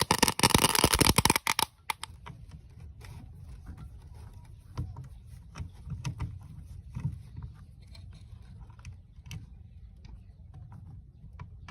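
Handling of a rusty old electronic device: a loud scraping rattle for about the first two seconds, then scattered light clicks and taps over a low rumble.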